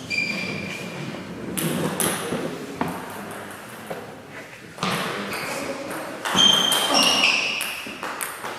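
Table tennis ball clicking off the bats and bouncing on the table during a serve and a short rally, a string of sharp ticks. A few short, high squeaks come in the middle and again near the end.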